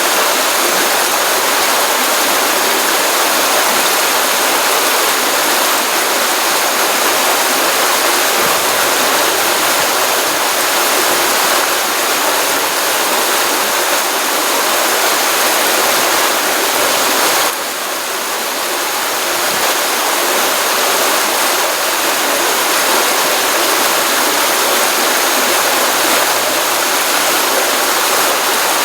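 Water running in a pond stream: a steady, loud rush with a brief dip in level a little past halfway.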